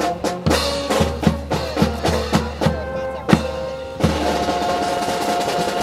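Brass band playing with bass drum and snare strokes about three a second, then holding one sustained chord from about two-thirds of the way in.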